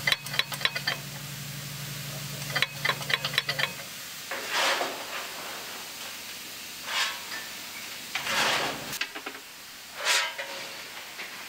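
Two quick runs of sharp metallic clicking, then four short bursts of hissing about one and a half to three seconds apart: steam escaping from a steam locomotive being raised in steam.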